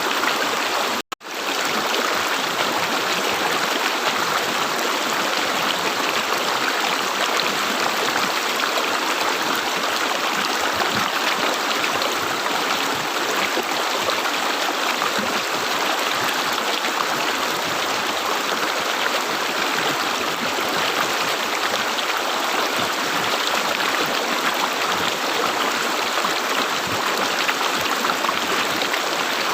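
River water gurgling and running steadily, with the sound cutting out for a moment about a second in.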